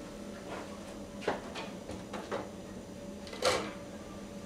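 Handling noise of fishing rods being set aside and picked up: a few light knocks and clicks, the loudest a sharp clack about three and a half seconds in, over a faint steady hum.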